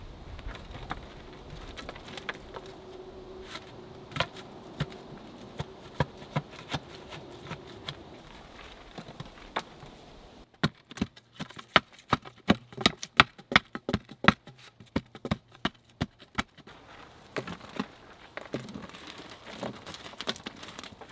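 Loose sandy soil being scraped and packed by hand around the base of an upright wooden pole in a dug hole: gritty scratching with scattered sharp knocks. About ten seconds in comes a quick run of sharp taps, about three a second, lasting some six seconds.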